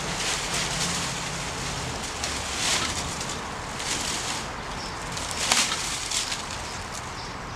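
Dry leaves and brush rustling in a dump cart as they are pushed and tossed with a long-handled tool, with several brief swishes.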